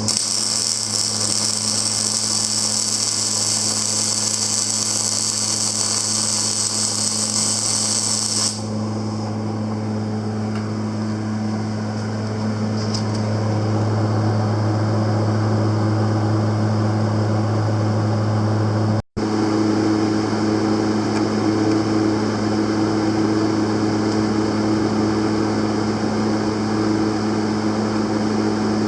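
A 2002 Panasonic full-digital semi-automatic welding machine running on test with a steady low hum. A high hiss over it stops about eight seconds in. The sound cuts out for an instant about two-thirds of the way through.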